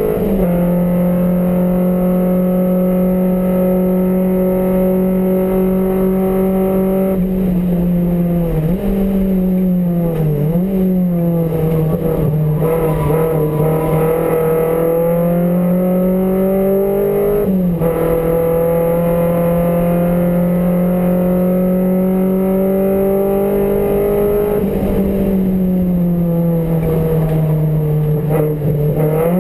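MG Metro race car's engine at high revs, heard from inside the stripped cabin. The engine note holds steady, dips and wavers through braking and downshifts about nine to eleven seconds in, climbs again, then drops sharply at an upshift about halfway through before climbing once more.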